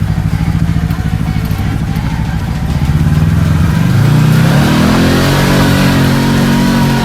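Kawasaki Teryx KRX 1000 side-by-side's parallel-twin engine running at low throttle, then revving up about halfway through and holding the higher speed.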